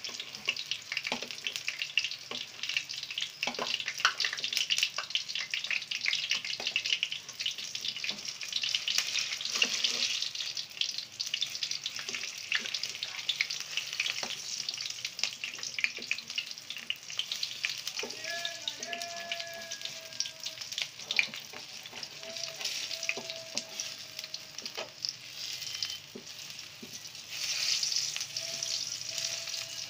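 Oil sizzling and crackling around stuffed colocasia (arbi) leaf rolls shallow-frying over high heat, with frequent small pops.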